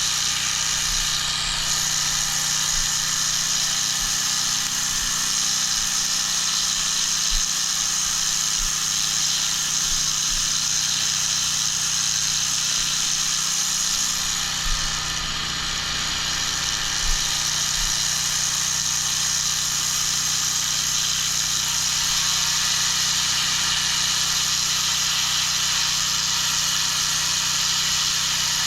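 Petrol pressure washer in use, a steady loud hiss of the water jet on block paving over the constant hum of the machine's engine and pump.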